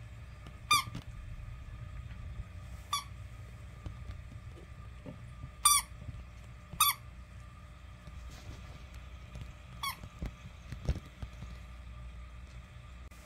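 A dog's squeaky pink pig toy squeaking under its bite: five short, high squeaks at uneven intervals, the loudest about halfway through.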